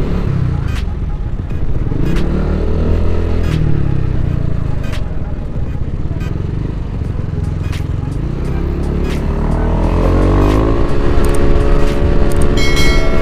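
Yamaha NMAX scooter's bored-up single-cylinder engine and CVT (fitted with a new SRP sliding sheave) pulling away and accelerating hard. The engine pitch rises twice, the second time about nine seconds in, then holds steady at speed. Wind rumble is on the helmet-camera microphone.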